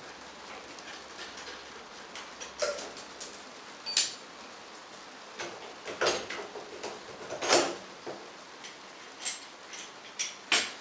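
Wrench clicking and clinking against the lower mounting bolt of a Kreidler moped's rear shock absorber as it is worked loose: irregular sharp metallic clicks, the loudest about two thirds of the way in.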